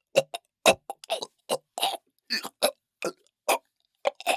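A man choking with his throat squeezed: a rapid string of about a dozen short, strangled gulps and gasps for air, each cut off sharply.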